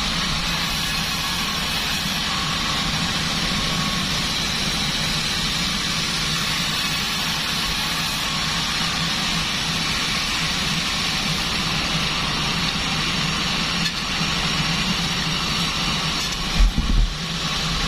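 Band sawmill running steadily, a constant low hum under a broad hiss, with a couple of low thuds near the end.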